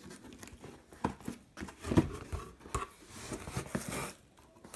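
Cardboard shipping box being handled and its flaps pulled open: scattered knocks and rustling of cardboard, with a sharper thump about two seconds in and a scraping, papery rustle near the end.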